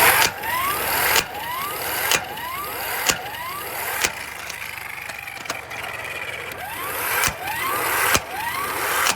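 A 12-volt electric impact wrench running against a lug nut that will not come loose, the nut not budging under it. A sharp knock comes roughly once a second over a repeating rising whine, and the sound cuts off suddenly at the end.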